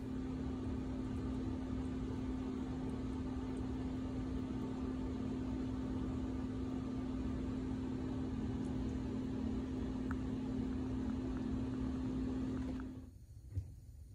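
Steady machine hum with one low tone running through it; it cuts off suddenly about 13 seconds in, followed by a single short click.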